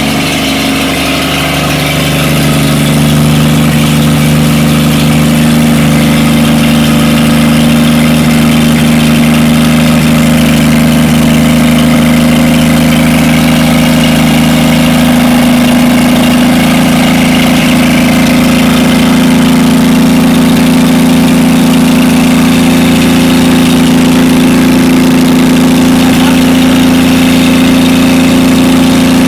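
The newly installed engine of a 1952 Chevrolet truck idling steadily on its first start-up, a little louder after the first few seconds and then even.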